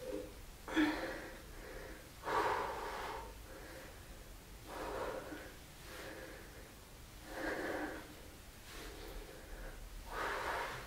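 A man breathing hard with the effort of an exercise: five loud, noisy breaths, one about every two and a half seconds, the first a sharp one about a second in.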